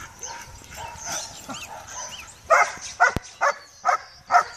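A young dog barking steadily at a helper hidden in a blind, starting a little past halfway through at about two barks a second: the bark-and-hold that marks the find in an IPO blind search. Birds chirp faintly before the barking starts.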